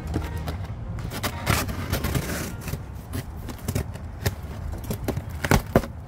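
Scissors slicing along the packing tape on a cardboard shipping box: an uneven run of scrapes and clicks, with a couple of sharper clicks about five and a half seconds in.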